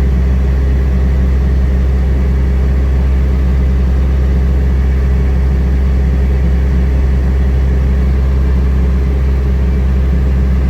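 Heavy farm diesel engine running steadily at constant speed, a loud low drone.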